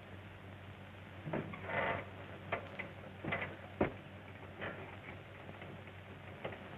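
A few irregular knocks and clicks, with a short rustle about two seconds in and the sharpest knock near the four-second mark, over a steady low hum and hiss.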